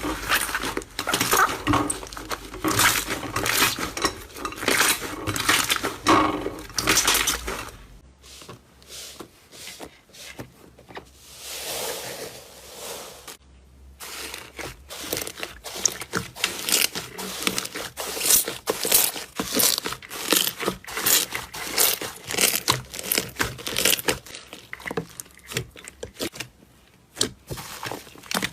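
Slime being squeezed and worked by hand, giving dense, irregular clicks and crackles, louder for the first several seconds and then softer.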